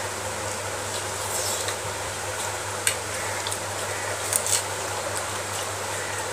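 Eating by hand from a metal plate: fingers mixing rice and chewing, with a few short sharp smacks or clicks, the loudest just under three seconds in and two more close together about a second and a half later. A steady hiss with a low hum runs underneath.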